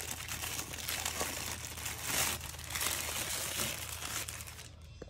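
Clear plastic wrapping crinkling and rustling as it is pulled off a statue base by hand, dying away shortly before the end.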